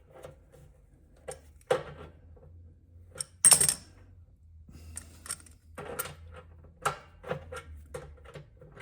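Irregular metallic clicks and clinks of hand tools and a small nut and bolt as a valve handle is unscrewed, the loudest a sharp clink about three and a half seconds in.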